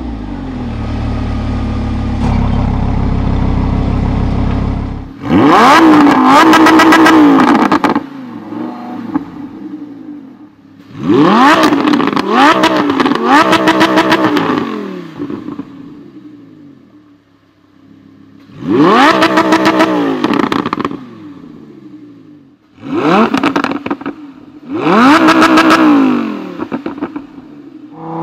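Lamborghini Huracán's naturally aspirated V10 engine, running with a steady low rumble heard inside the cabin at first, then revved hard in about five bursts. Each burst climbs sharply in pitch, is held briefly, and drops back to idle.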